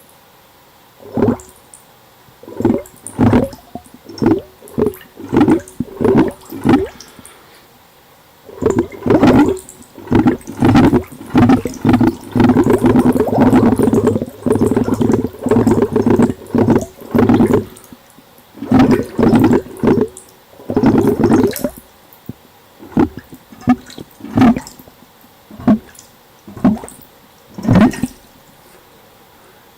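Bubbles blown through a siphon tube into a bowl of water, recorded underwater by a latex-covered microphone: deep gurgling bubble bursts coming in short puffs, running together into a continuous bubbling stretch in the middle, then back to separate puffs.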